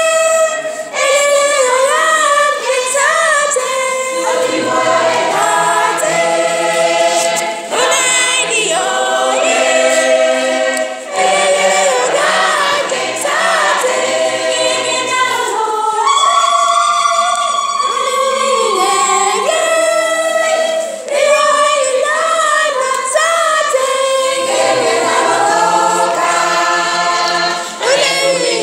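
Choir singing a cappella, several voices together in a steady, continuous song.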